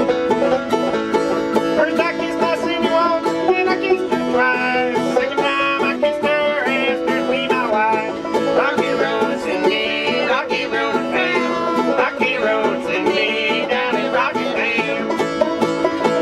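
Old-time Appalachian tune played on banjo and acoustic guitar, the banjo picking busy notes over a steady strummed guitar.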